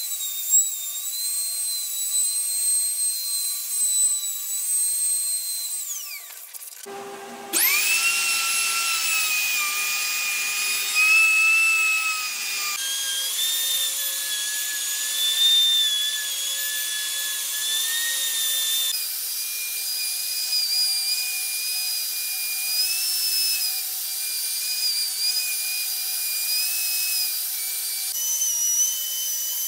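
Plunge router fitted with a flattening bit, running at a high whine while it cuts across the end grain of a wooden cutting board. About six seconds in the motor winds down and goes briefly quiet, then starts up again with a quick rising whine.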